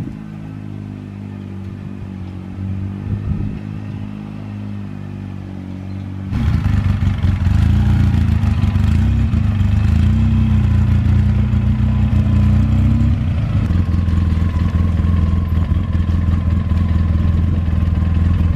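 Motor vehicle engine running while it tows the pontoon boat's trailer, much louder from about six seconds in.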